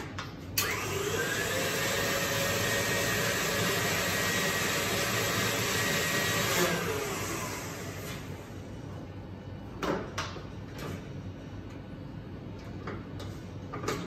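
An electric motor with a loud rush of air spins up about half a second in, runs steadily with a faint whine for about six seconds, then winds down. A few light knocks follow.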